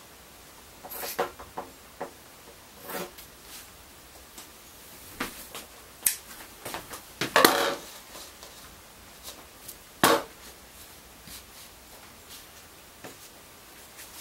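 Scissors snipping fiberglass cloth and the loose cloth rustling as it is smoothed over a surfboard, with scattered light knocks and one sharp, loud click about ten seconds in.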